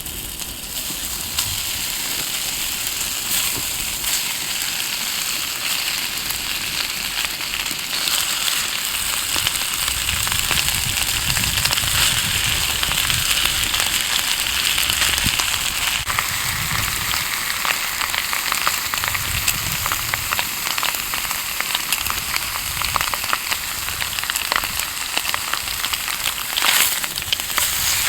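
Food frying over a wood fire, a steady sizzle with dense crackling pops.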